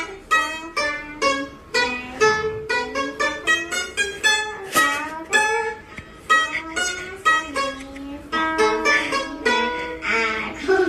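Background music: a plucked string instrument playing a quick, bouncy tune of short notes, some with sliding pitch.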